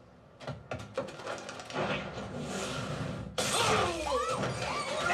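Action-film sound effects played back through an SVS center channel speaker: a quick run of sharp knocks, then a sudden loud crash about three and a half seconds in, with shattering and wavering, wailing pitched sounds over it.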